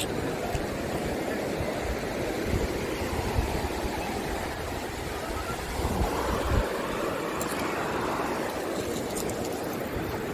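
Sea surf washing steadily, swelling a little around six seconds in, with wind buffeting the microphone in low gusts.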